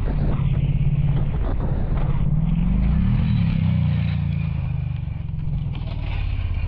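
A motorcycle crash heard through a helmet camera. The engine runs under wind noise, with a few sharp knocks in the first two seconds as the bike strikes a deer and goes down. About three seconds in, the engine note rises and then falls.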